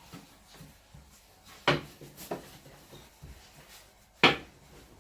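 Pasta dough being kneaded by hand on a wooden board: a sharp knock about a second and a half in, a smaller one soon after, and a louder one near the end, with soft rubbing between.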